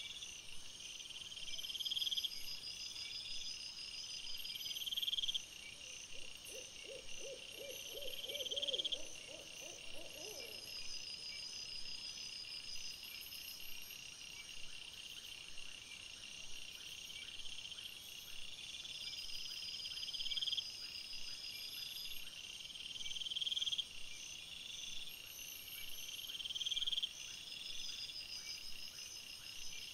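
Night insects chirring in repeated high bursts every second or two, with a higher steady trill behind them. From about six to ten seconds in, a low animal call of a dozen rapid pulses rises in pitch. The recording plays at three times normal speed.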